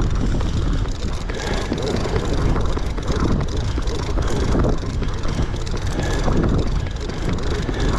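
A fishing boat's engine running with a steady low rumble, mixed with wind and sea noise.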